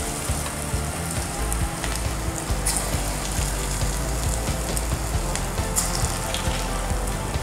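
Lentil-batter fritters (kunukku) deep-frying in hot oil in a kadai: steady sizzling and bubbling with scattered sharp crackles as fresh dollops of batter go into the oil.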